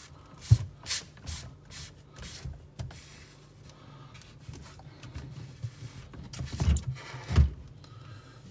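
Rubbing and scraping of a new water filter cartridge being handled and fitted into its plastic housing: a quick series of short strokes, then quieter handling and two dull knocks near the end.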